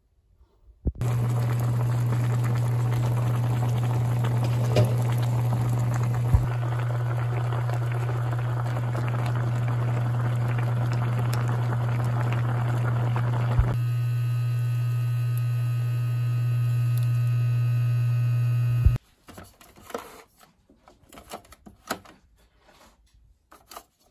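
Electric blender running steadily, grinding a kimchi seasoning of onion and chili powder. It starts about a second in, its sound changes partway through, and it cuts off suddenly near the end.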